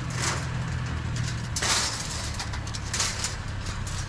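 Wire garden fencing rustling and scraping as it is handled, in a few short noisy bursts, the largest about one and a half seconds in, over a steady low hum.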